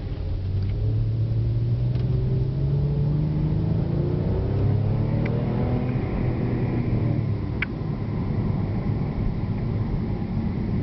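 2008 Porsche 911 Turbo's twin-turbo flat-six engine pulling under acceleration on the road, its pitch rising steadily for about six seconds and then easing back, over a steady low road and tyre rumble.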